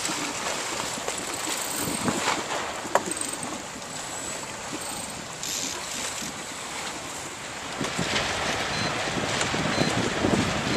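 Wind buffeting the microphone on an open boat, with water washing against the hull; a single sharp knock about three seconds in, and the wind grows louder near the end.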